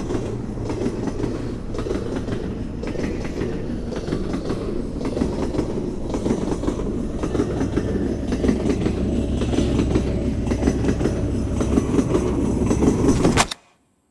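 A train running on rails: a dense, steady low rumble that grows a little louder and then cuts off abruptly near the end.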